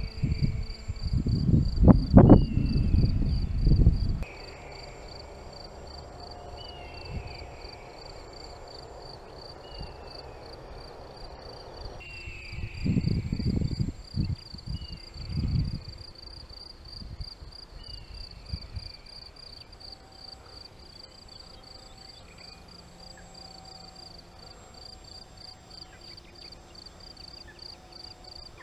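Homemade eagle-cry sound effect for an RC plane: a short, falling screech repeated about every second and a half over a steady, fast, cricket-like pulsing chirp. A loud low rumble fills the first few seconds and returns briefly about halfway through.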